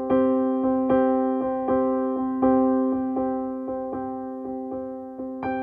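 Background music: a piano-like keyboard playing evenly repeated notes, about two to three a second, each dying away before the next.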